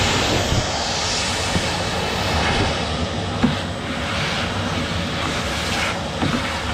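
Shop vacuum running steadily while its hose nozzle sucks PVC dust and chips off a CNC router bed, with a few sharp clicks along the way.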